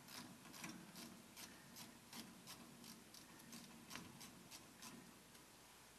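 Faint, steady clicking, about three or four clicks a second, as a hose clamp on a fuel filler hose is loosened with a 5/16 tool; the clicking stops about five seconds in.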